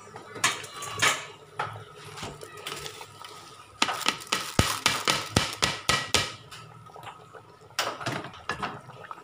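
Soaked biryani rice tipped from a plastic colander into a large aluminium pot of boiling liquid. There are a few scattered knocks, then a rapid run of clatters and knocks about four seconds in, and a shorter run near the end.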